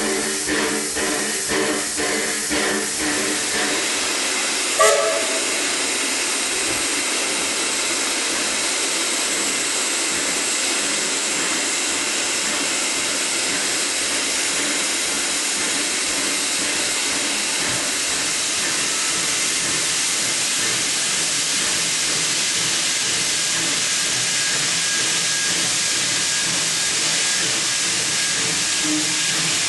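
Steam hissing steadily and loudly from the DD17 steam locomotive. At first it is broken into a rhythmic pulsing, and a single short sharp sound comes about five seconds in.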